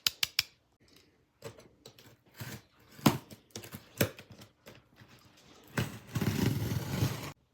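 A cardboard box being worked open by hand: scattered knocks and clicks, then about a second and a half of rustling and scraping near the end.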